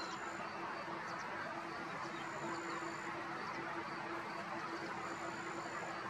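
Steady outdoor background noise with a continuous low hum at one pitch. Faint, high, thin notes sound over it, one drawn-out note recurring about every three seconds.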